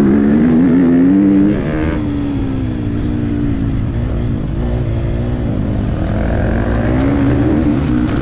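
Motocross bike engine under hard throttle, its pitch rising and then dropping off sharply about a second and a half in, then pulling steadily with the revs rising and falling as the rider works the throttle. A constant low rumble of wind on the helmet-mounted camera runs underneath.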